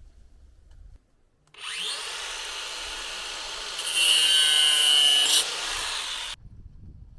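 A small power tool spins up with a rising whine, runs steadily for about five seconds, louder in the middle as it works against the material, and cuts off abruptly.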